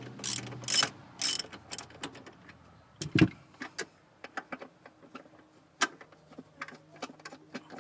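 A ratchet wrench being worked, with four loud clicks in the first two seconds, a dull knock about three seconds in, then scattered fainter ticks.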